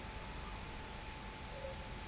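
Faint steady hiss of room tone, with a thin faint steady tone in it.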